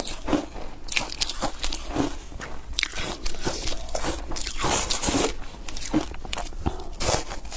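Foam ice being bitten and chewed: a run of sharp crunches and crackles, densest about five seconds in.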